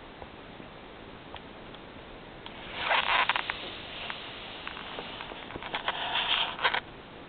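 A fox terrier puppy making two short bursts of noisy, clicking sounds about three seconds apart, the second longer and ending in a couple of sharp clicks.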